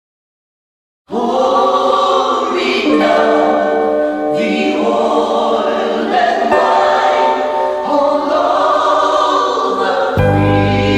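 About a second of silence, then the intro of a gospel song starts: choir voices hold harmonised chords that change every second or two. Near the end a deep bass line comes in.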